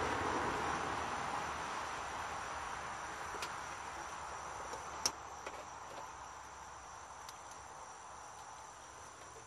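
A soft hiss that fades away steadily, with a faint steady high-pitched drone like insects behind it. A few light clicks of hands handling wires and a capacitor in the unit's control panel, the sharpest about five seconds in.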